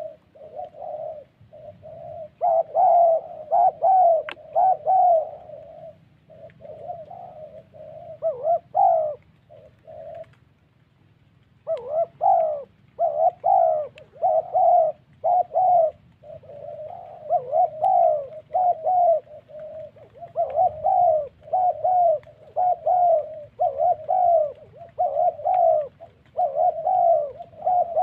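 Spotted doves cooing in quick repeated low phrases, with a short break about ten seconds in before the cooing resumes.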